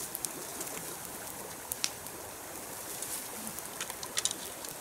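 Campfire crackling, with a few sharp pops over a steady background hiss, and a bird's brief low coo about three and a half seconds in.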